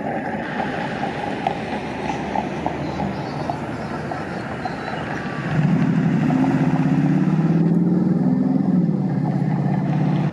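Street traffic noise, then from about halfway a motor vehicle's engine running close and loud, its pitch rising a little and then falling, until it cuts off abruptly at the end.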